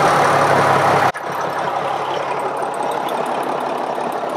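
Inboard marine engine freshly started after an oil change, running at idle. About a second in the sound drops suddenly to a quieter, steady run.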